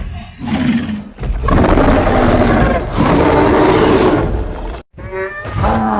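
Skar King monster vocal sound effects: a short growl, then a long, loud roar that cuts off abruptly near the end, followed by a new, more pitched call.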